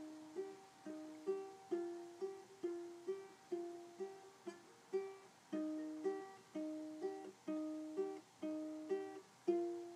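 Solo ukulele picking a melody one note at a time, about two notes a second, each note struck and left to ring down before the next.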